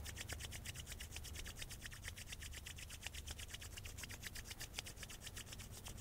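Palms rubbed briskly together to warm the hands, a fast, even swishing of skin on skin.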